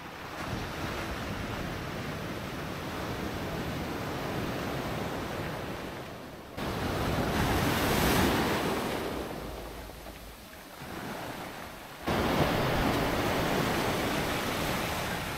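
Surf breaking and washing up a beach, a steady rushing wash. The level jumps up suddenly twice, at about six and a half seconds and about twelve seconds in.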